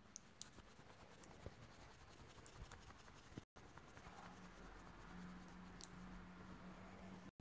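Near silence: faint room noise with a few small clicks and scratchy rustles, and a faint low hum in the second half. The audio cuts out completely for an instant about halfway through and again near the end.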